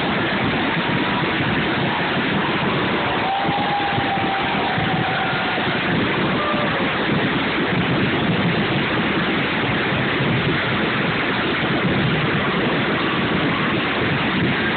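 Massed fireworks display going off continuously, its bangs and crackles blurred into one steady rumbling wall of noise, with a few faint whistles in it.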